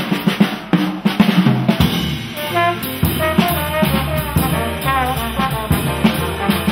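Live small-group jazz: a drum-kit break with snare and bass-drum hits, then from about two seconds in a trombone takes up a phrase with bending, sliding notes over bass and drums.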